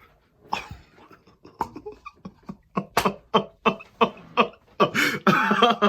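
A man's stifled laughter: short breathy snorts and huffs a few times a second, breaking into open, pulsing laughter near the end.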